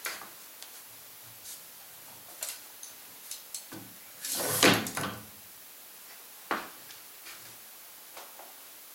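Quill wheel and quill feed of a Bernardo BF 30 G drill/mill being turned by hand: scattered clicks and knocks from the mechanism. About halfway through comes a longer, louder stretch of noise lasting nearly a second, and a sharp knock follows a couple of seconds later.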